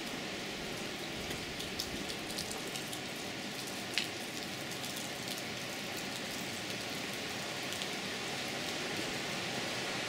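Steady rush of outdoor water noise with scattered light drips ticking over it, one sharper drip about four seconds in.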